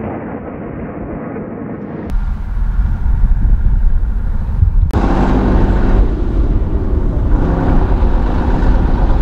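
For the first two seconds, the rough rush of a rocket salvo with wind on the microphone. Then, from about two seconds in, the heavy diesel engine of a Tornado-G multiple rocket launcher truck runs with a deep, steady rumble as it drives across rough ground.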